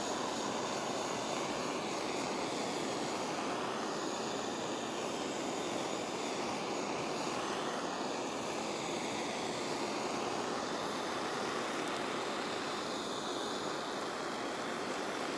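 Handheld kitchen torch burning with a steady rushing hiss as its blue flame sears the skin of seasoned chicken thighs.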